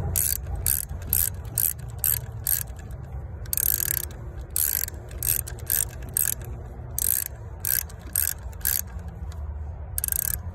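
Ratchet wrench with an E10 Torx socket clicking in repeated short back-strokes, about two or three a second with a brief pause about nine seconds in, as it tightens the bolt holding a MAP sensor. A steady low rumble runs underneath.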